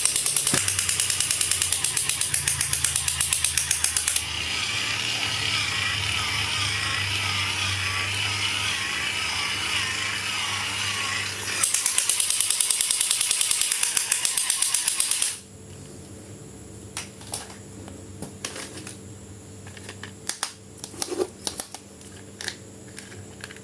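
A fast mechanical rattling buzz, about four pulses a second, with a steadier warbling stretch in the middle. It stops suddenly about fifteen seconds in, leaving only faint scattered clicks.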